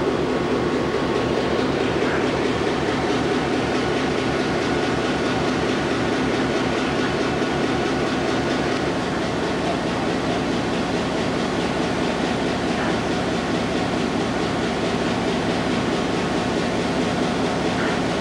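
Diesel locomotive running, a loud steady rumble and hum with a few held tones; the sound changes about nine seconds in.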